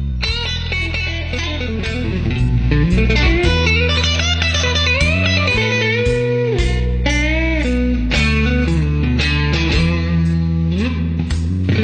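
Guitar music: a lead line with bending, gliding notes over steady low bass notes.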